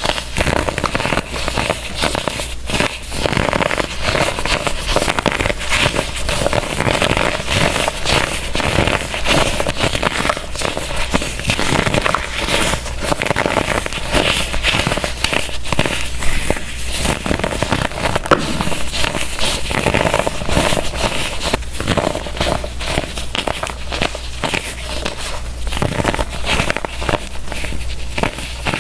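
Blocks of baked baking soda being crushed by hand, a dense run of sharp crunches and crackles that crumble the blocks.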